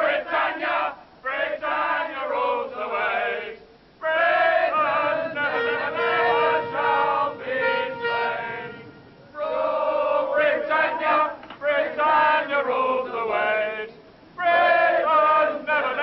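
A group of voices singing together, in phrases a few seconds long with brief pauses between them.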